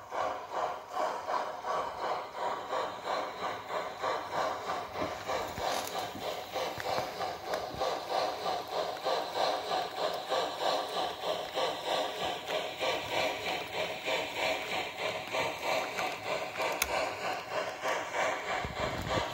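Steam locomotive chuffing from a TCS 501 steam sound decoder, played through a small speaker in the tender of an S scale MKT Pacific model as it runs, an even beat of roughly three chuffs a second.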